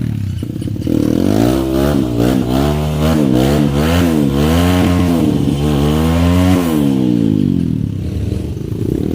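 Trail motorcycle engine revved in quick bursts, its pitch rising and falling about twice a second, then dropping to a steadier, lower running note for the last couple of seconds.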